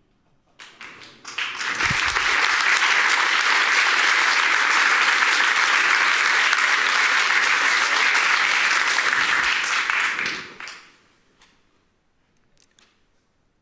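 Audience applauding: a few first claps, then steady clapping for about nine seconds that dies away, with a couple of last claps near the end.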